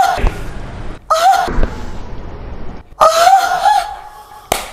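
Excited high-pitched shrieks and laughter: three whooping squeals, the last one longer and wavering, then a sharp smack near the end.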